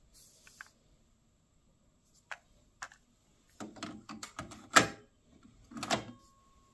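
Plastic cassette shell clicking and rattling as it is slotted into the open cassette door of a Yamaha KX-380 deck, with the sharpest click about two-thirds of the way in, then a second clatter as the door is pushed shut near the end. A faint steady tone follows the closing.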